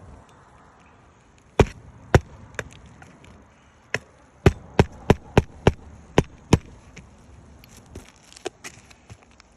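Hammer driving roofing nails into an asphalt shingle, a series of sharp strikes. Three blows come about a second and a half in, then a quick run of about eight from about four seconds, and lighter taps near the end.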